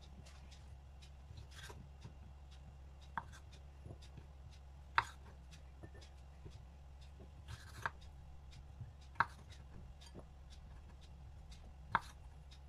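Small knife cutting candied cherries in half on a wooden cutting board: a sharp knock of the blade on the board every two to three seconds, with fainter clicks in between, over a faint steady low hum.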